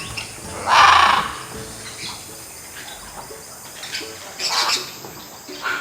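Bird calls: one loud call about a second in, then several shorter, quieter calls later, over faint background music.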